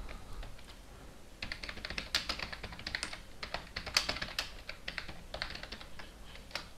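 Typing on a computer keyboard: an irregular run of key clicks, a few light taps at first, then quick, busy typing from about a second and a half in.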